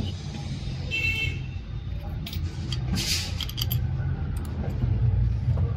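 Small metal parts of a diesel injection pump being handled and set in place: light clinks and taps, a short metallic ring about a second in and a brief rasp about three seconds in, over a steady low hum.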